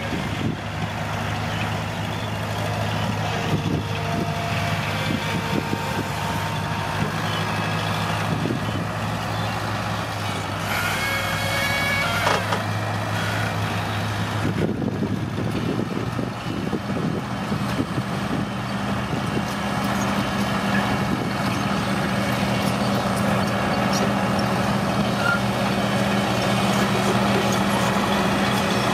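Diesel engine of heavy construction machinery running steadily, stepping up to a higher engine speed about halfway through, with a brief high whine shortly before.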